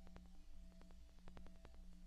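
Near silence: a faint low hum with scattered faint clicks.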